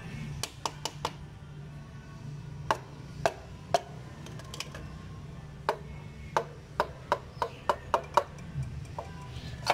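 A piston being tapped down through a ring compressor into the cylinder bore of a Proton Waja engine block with the wooden handle end of a mallet. It makes a series of sharp, irregular knocks, coming quicker near the end.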